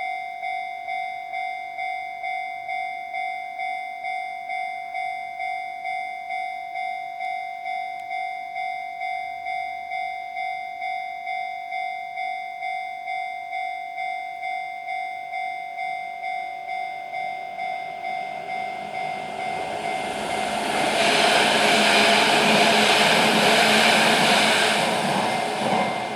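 Japanese railway level crossing warning bell ringing in steady repeated dings, a little under two a second. About twenty seconds in, a train passes over the crossing, its rumble and wheel noise swelling to drown the bell before fading near the end.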